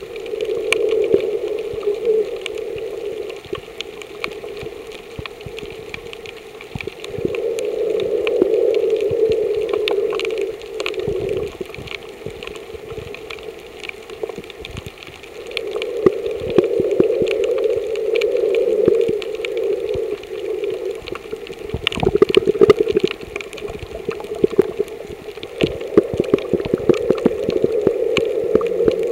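Underwater ambience in shallow reef water, heard through a submerged camera. A muffled rushing swells and fades every several seconds, with scattered crackling clicks throughout and a denser patch of clicks a little past the middle.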